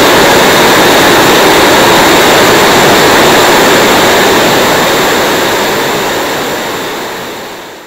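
Homemade turbocharger-based jet engine running steadily at high power, a loud even rush of exhaust with a thin high whistle. The sound fades away smoothly over the last few seconds.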